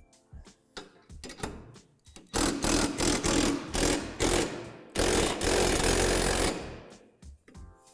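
Cordless impact driver driving a long hex bolt through a steel extension arm, in two runs of rapid hammering, the second longer and dying away about seven seconds in. Before it, a few light metal clicks as the bolt is set in place.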